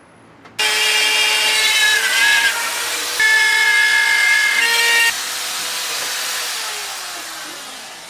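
Corded handheld power tool cutting into a wall: it starts suddenly with a high, screeching whine under load. About five seconds in it is taken off the cut, and the motor winds down with a falling pitch.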